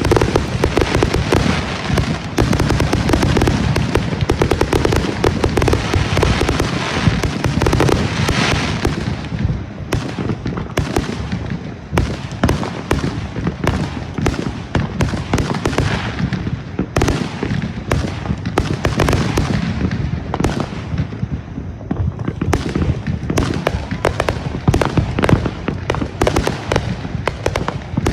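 Fireworks show firing continuously: a rapid, dense barrage of shells and single shots, with booms and crackling bursts overlapping throughout.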